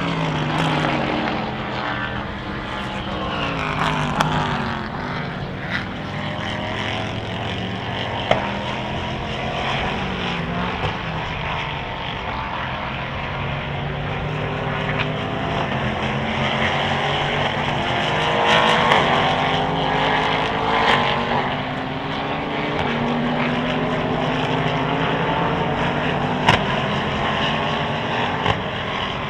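Endurance race cars running on the circuit, several engines at once rising and falling in pitch as they pass, brake and shift through the gears, with a few sharp pops.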